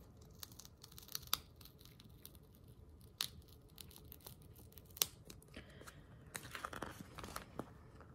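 Planner stickers being pressed down and peeled back off a planner page. Scattered light taps and clicks give way, in the last couple of seconds, to a faint crinkly peeling rustle.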